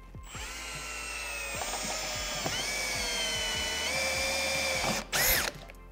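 Cordless drill running as it bores a hole through a boat's dash for the heading sensor's mounting screws. Its steady motor whine shifts in pitch a few times as it cuts, stops about five seconds in, then gives one brief, higher, louder burst.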